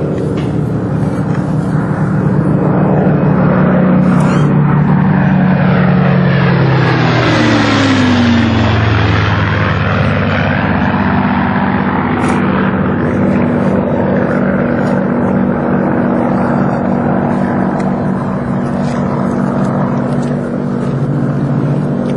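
Two Spitfires' piston engines droning in a low fly-past. The engine note drops sharply in pitch as they pass, about eight seconds in, then carries on at the lower pitch as they fly away.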